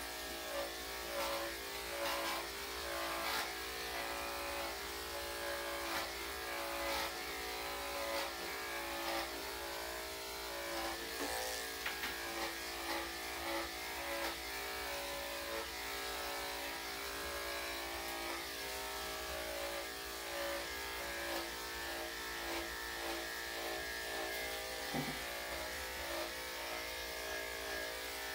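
Electric dog grooming clippers with a number 7 blade buzzing steadily as they shave through a Yorkshire terrier's matted coat. Small clicks and flutters in the buzz come as the blade passes through the hair.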